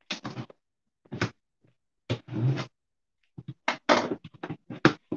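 Cardboard shipping box being opened: a box cutter slitting the packing tape, then the flaps being pulled apart. This makes a string of short scraping, rustling noises with thuds, coming faster over the last couple of seconds.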